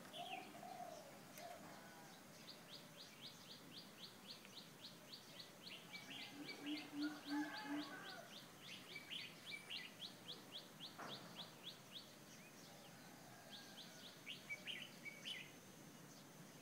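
A small bird calling in a fast, even series of short high chirps, about four a second, breaking off briefly and starting again near the end. A low four-beat sound comes in once midway.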